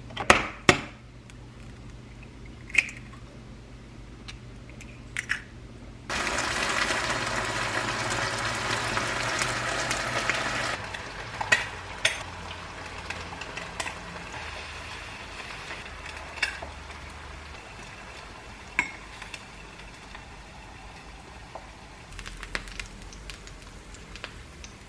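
Scattered clicks and knocks of kitchenware, then an egg sizzles loudly in hot oil in a frying pan for about four seconds and stops suddenly. A few more light clicks of bowls and utensils follow.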